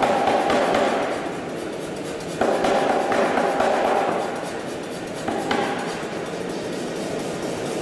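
Anyang self-contained air power hammer hammering hot steel held in tongs, its ram striking the die in rapid repeated blows. The blows come in runs, with louder runs starting about two and a half seconds in and again about five and a half seconds in.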